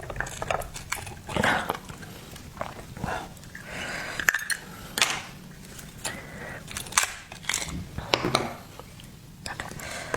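Hot seafood being handled and eaten up close: irregular clicks and clatter of shells and utensils mixed with eating noises.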